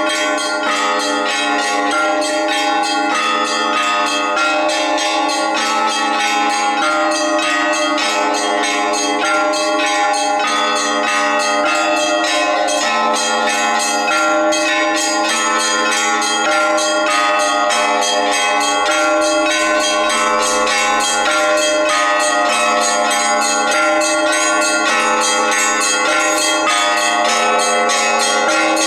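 Orthodox monastery church bells ringing: several bells of different pitches struck continuously in quick succession, their tones overlapping.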